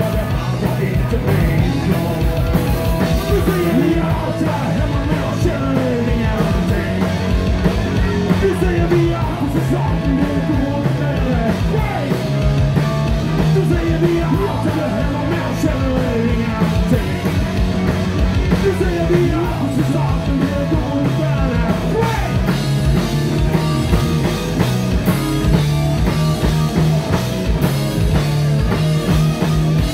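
Live rock band playing: distorted electric guitars, bass guitar and a drum kit, with a man singing lead into the microphone.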